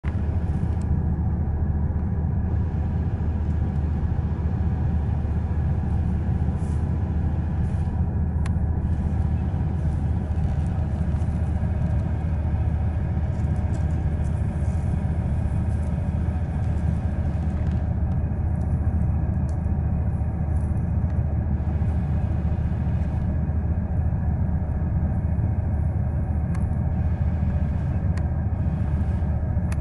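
Steady low vehicle rumble, with a few faint clicks.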